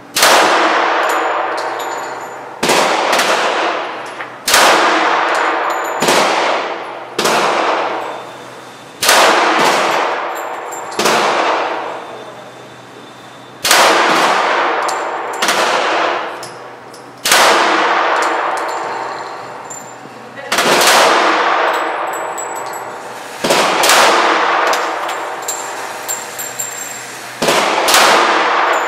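Smith & Wesson M&P .45 ACP pistol fired in slow, deliberate single shots, about a dozen spaced one and a half to three seconds apart. Each shot rings on with a long echo off the walls of the indoor range lane.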